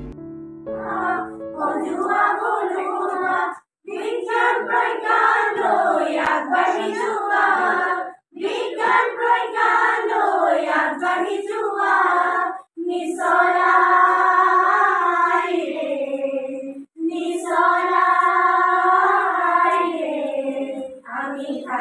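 A group of women and girls singing a song together in unison, with no instruments. The phrases stop briefly for a breath about every four seconds.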